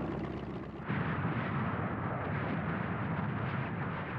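Combat sound effects: a continuous rumbling roar of gunfire and explosions. It changes abruptly just under a second in, turning duller and heavier.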